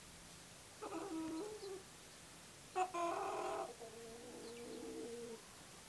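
Chickens calling in the background. There is a short call about a second in, then a louder call about three seconds in that draws out into a long, steady note lasting about two seconds.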